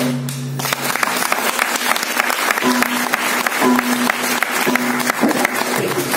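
Mridangam strokes ring out with a low, pitched resonance, then come about once a second. From about half a second in, steady clapping runs under them.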